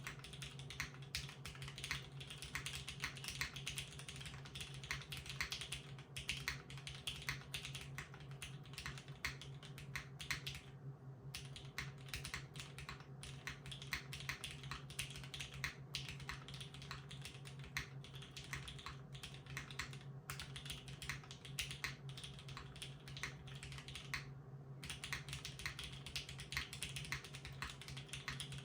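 Continuous typing on a Singa x TGR Unikorn 60% custom mechanical keyboard with broken-in vintage Cherry MX Black linear switches in an aluminium plate, under GMK ABS keycaps: a dense run of keystrokes with a few brief pauses.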